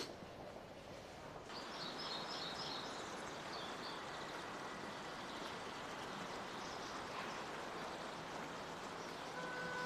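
Steady rush of running water, as of a stream, starting about a second and a half in, with birds chirping over it for the first few seconds. A short click comes at the very start, and music starts near the end.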